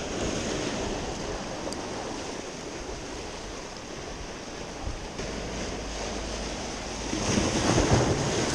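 Sea waves washing on the shore, a steady surf with some wind on the microphone; a wave surges louder about seven seconds in.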